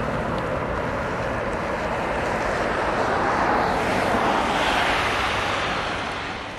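Airbus A318 jet engines at takeoff thrust, heard from a distance as a steady roar. The roar swells and brightens about four seconds in, then fades away near the end.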